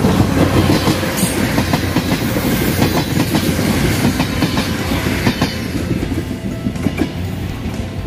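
Passenger train passing close by, its wheels clicking over the rail joints, the sound easing off as the last car goes by near the end.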